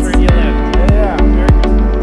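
Background music with a steady electronic beat and deep bass.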